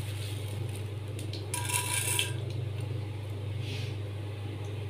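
Mustard seeds and urad dal crackling and popping in hot coconut oil in a kadai, with a louder burst of sizzling about one and a half seconds in, over a steady low hum.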